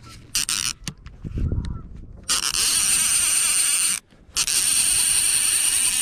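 Line-counter trolling reel's drag buzzing loudly in two long runs, with a short break about four seconds in, as a hooked lake trout pulls line off. Handling clicks and knocks come before it.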